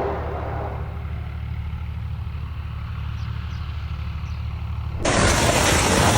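A motor vehicle's engine running with a steady low rumble. About five seconds in, a sudden loud rushing noise starts and drowns it out.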